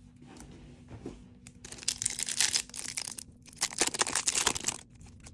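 Foil Pokémon booster pack wrapper being torn open and crinkled, in two bursts of about a second each starting near the middle.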